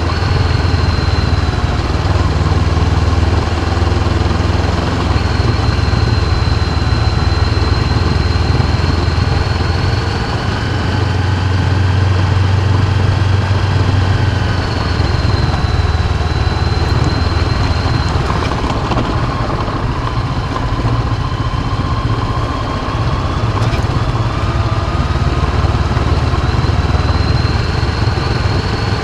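Honda CB500X's parallel-twin engine running while the motorcycle is ridden, with wind and road noise. A thin high-pitched whine rises and falls slowly through it.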